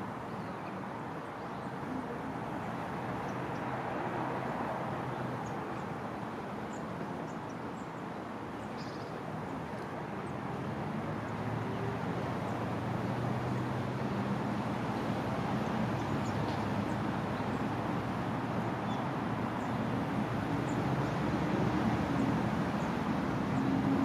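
Outdoor city-park ambience: a steady wash of road traffic, with occasional short faint bird chirps above it. Near the end a vehicle's engine grows louder as it comes closer.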